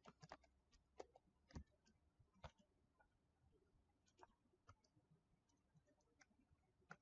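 Faint, irregular computer keyboard keystrokes as HTML is typed, with a few sharper clicks in the first half.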